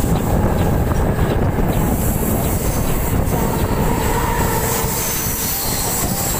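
Mumbai suburban electric local train running along the track, heard through its open doorway: a steady rumble and clatter of wheels on rail with scattered clicks. Another local train passes close alongside on the next track, and a faint whine comes up about two-thirds of the way through.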